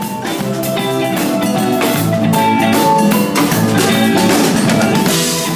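Street band playing live: drum kit, xylophones and other mallet percussion, and guitar, with many pitched notes over a steady drum beat.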